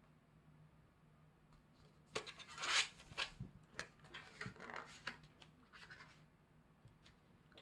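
Album packaging and its paper contents being handled: a run of short rustles, scrapes and light taps begins about two seconds in and stops around six seconds, over a faint steady hum.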